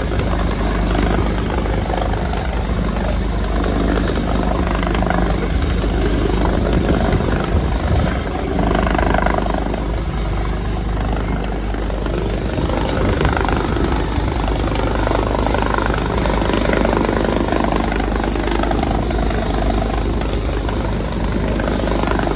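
Helicopter close by during a rescue airlift, its rotor beating and engine running steadily and loud.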